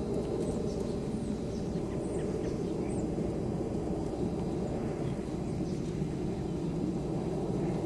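Steady low outdoor rumble with a few faint bird chirps over it.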